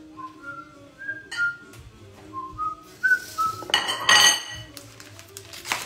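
A person whistling a tune in short notes while kitchenware clatters, with a loud ringing clank about four seconds in and a sharp knock near the end.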